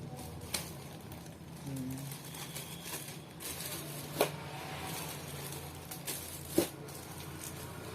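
A few sharp clicks or taps, three in all spread over several seconds, over a steady low hum in a small room.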